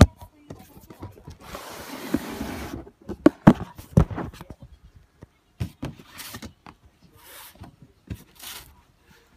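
Cardboard sneaker box being handled and opened by hand: a sharp knock, a scraping slide lasting over a second, then several knocks and short rustles of the lid and tissue paper.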